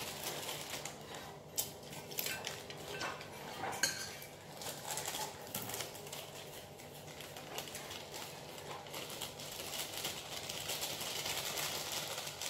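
Kitchen utensils and dishes clinking and clattering on a counter during food preparation. Sharp clinks come in the first few seconds, followed by a denser run of scraping and rustling.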